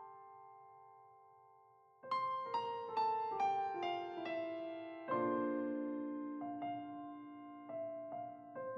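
Background piano music: a held chord fading away, then a run of falling notes and soft chords with each note decaying slowly.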